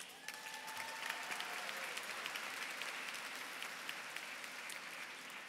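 Audience applauding: a large crowd clapping, easing off slightly toward the end.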